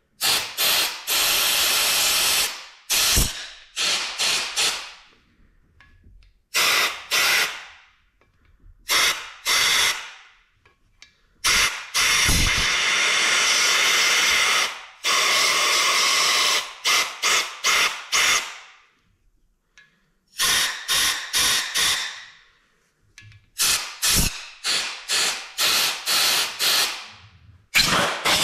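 Compressed-air blow gun hissing in repeated bursts, some quick taps and some held for two or three seconds, blowing bearing shavings out of an aluminum LS engine block.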